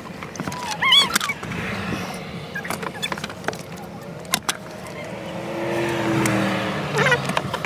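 A vehicle passing outside, its sound swelling and fading about two-thirds of the way through. Under it are scattered sharp clicks of parts being handled at the bare steering column, and a few short squeaks near the start.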